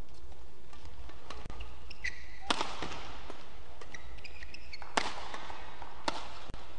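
Badminton rackets hitting the shuttlecock back and forth in a doubles rally: sharp cracks, the loudest two about two and a half seconds apart, with lighter hits between.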